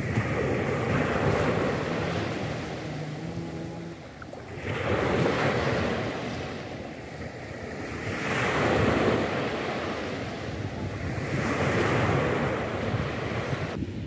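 Small Black Sea waves breaking and washing up a pebble beach at the water's edge, the surf rising and falling in swells about every three to four seconds. The wash cuts off abruptly just before the end.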